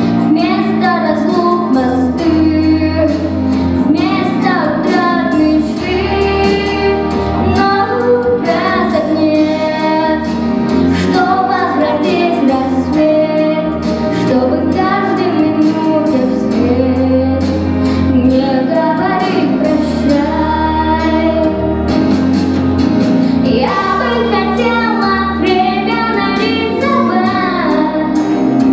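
A young girl singing solo into a microphone over instrumental accompaniment with a steady bass line.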